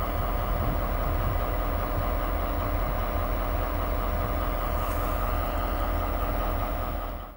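Two French diesel freight locomotives, a BB 75000 and a BB 67400, idling together: a steady low engine drone.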